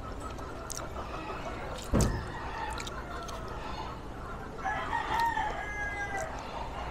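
A rooster crows once, a drawn-out call starting about four and a half seconds in and lasting about a second and a half. A dull thump sounds about two seconds in, the loudest moment.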